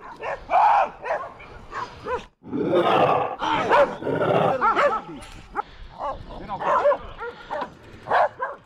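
Dogs barking in a rapid, overlapping string of barks, busiest in the middle.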